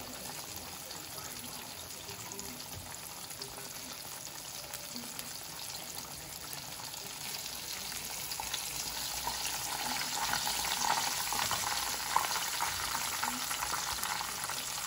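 Breaded chicken cutlet shallow-frying in a pan of hot oil: a steady sizzle. From about halfway through, as tongs move the cutlet in the oil, it grows louder and crackles more, with a sharp click near the end.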